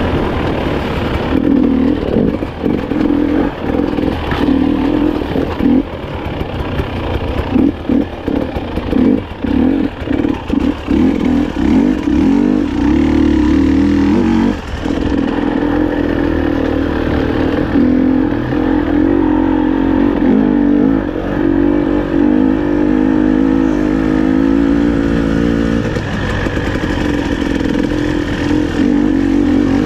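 300 cc two-stroke enduro motorcycle being ridden off-road, its engine note rising and falling as the throttle opens and closes. For a stretch in the middle the sound turns choppy, with the throttle blipped on and off in quick succession.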